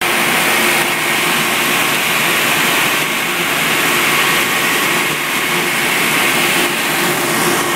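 Heavy farm machinery running steadily, a loud even noise with a constant whining drone.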